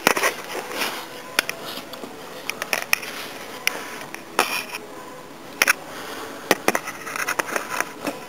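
Irregular clinks, knocks and short scrapes of hard objects being handled, a dozen or so sharp clicks spread unevenly over a low steady hiss.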